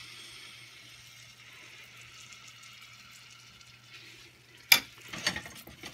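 Banana fritter batter sizzling steadily in hot cooking oil as it deep-fries. Near the end comes a sharp knock, then a few lighter knocks, from kitchen utensils.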